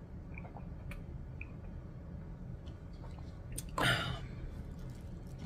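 Quiet eating-break sounds at a table: faint scattered mouth clicks over a steady low hum, and a short, loud burst of noise about four seconds in as a hand goes into the burger's paper-and-foil wrapper.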